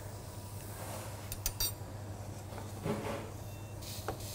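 A few light clinks of metal pans and utensils on a cooktop, about a second and a half in, over a steady low hum.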